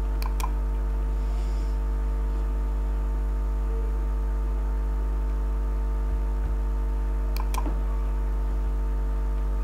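Steady electrical mains hum with a row of even overtones. Over it, two pairs of quick computer mouse clicks, one near the start and one about seven seconds in.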